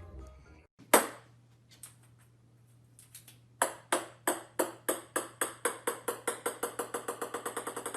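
A ringing, bell-like ping struck once, then after a pause struck over and over, faster and faster.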